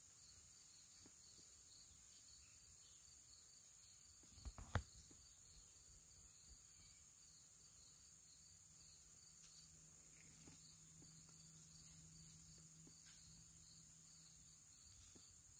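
Compound bow shot: a quick cluster of sharp knocks about four and a half seconds in, ending in one loud crack, the arrow hitting the deer solidly. Around it, a faint steady trill of insects.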